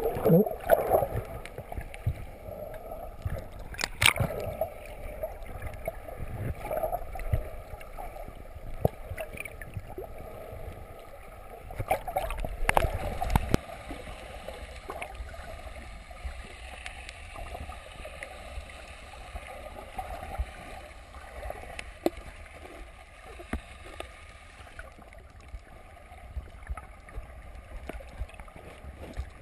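Muffled water noise around a submerged camera: low rumbling and gurgling with a few sharp knocks, the loudest about 4 seconds and 13 seconds in, growing quieter over the second half.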